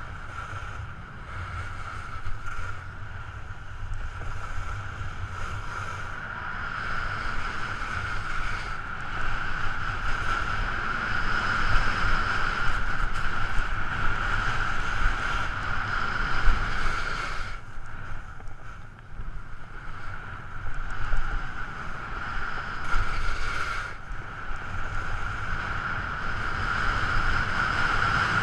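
Wind rushing over the camera microphone together with telemark skis scraping over hard-packed groomed snow on a fast descent, a continuous hiss and rumble that swells and eases, with a brief lull about two-thirds through.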